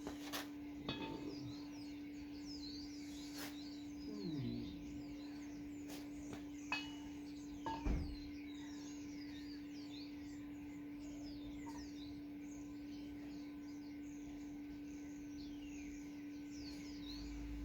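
Small birds chirping and singing over a steady hum, with a few light knocks now and then.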